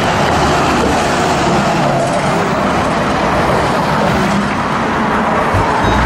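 Steady road-vehicle noise, an even rush of engine and traffic sound with no distinct tones, holding level throughout.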